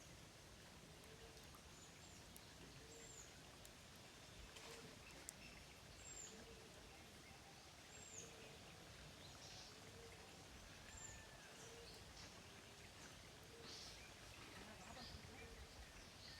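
Faint outdoor ambience with birds calling: a low, arched call repeating about once a second under short, high chirps every second or two, over a soft steady hiss.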